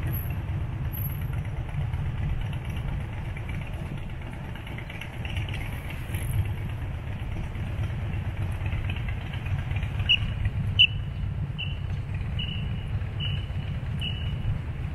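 Steady low rumble of road traffic on a wide multi-lane avenue. Near the end come six short high chirps, evenly spaced a little under a second apart.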